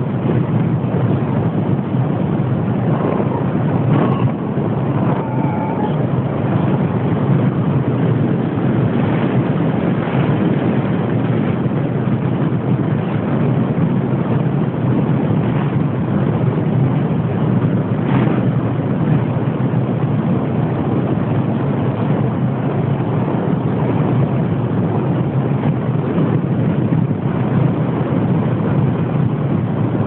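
Steady, loud drone of a small aircraft in flight: its engine running with rushing wind on the microphone.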